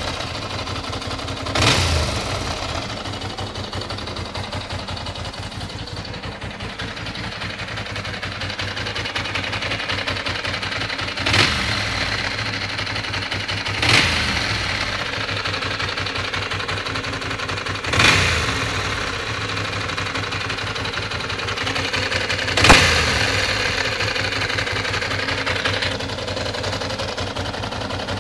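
Ducati 600 Monster's air-cooled 90-degree V-twin idling, with five short throttle blips that rise sharply and fall back to idle.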